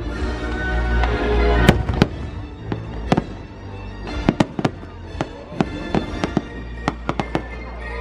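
Aerial fireworks bursting with sharp bangs, a few spaced out at first and then a rapid string of them from about four seconds in, over music playing steadily.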